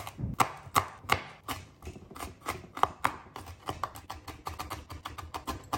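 Chef's knife chopping small red chillies on a wooden cutting board: a run of quick, sharp knocks of the blade on the board, a few a second, coming faster in the second half.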